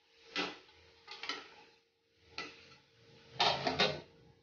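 Metal spatula knocking against a steel kadhai, a few separate clinks, then a quick cluster of metal clatters near the end.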